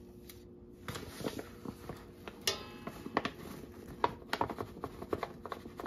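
A cup scooping and measuring flour: irregular light taps, scrapes and clicks starting about a second in, with one sharper, briefly ringing clink near the middle.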